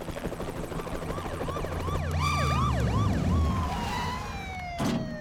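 Siren sound effect wailing in quick up-and-down sweeps over a low rumble, then sliding down in one long falling tone. A single sharp knock sounds near the end.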